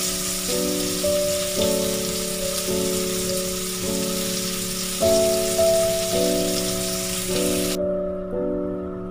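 Flour-coated garoupa fish pieces sizzling in hot oil in a frying pan, over background piano music with chords changing about once a second. The sizzle cuts off suddenly near the end, leaving only the music.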